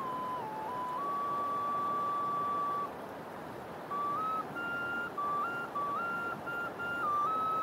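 Slow flute-like melody in a pure, high tone: a few falling notes, a long held note, a pause of about a second, then short notes stepping up and down before another long held note. Under it runs the steady rush of a flooded river.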